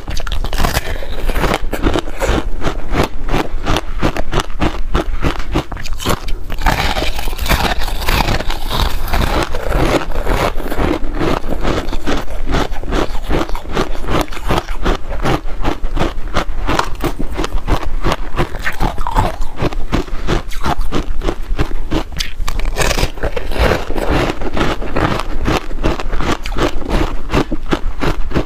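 Teeth biting into and chewing a block of frozen ice coated in passion fruit pulp, close to the microphone. Dense, crackling crunches come thick and fast throughout.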